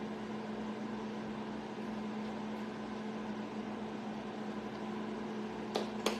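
A steady appliance hum over a faint hiss. Near the end come two sharp hand claps close together.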